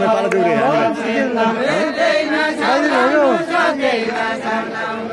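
Voices singing a deuda, the far-western Nepali folk song traded verse by verse between singers, with gliding sung lines and at times more than one voice at once.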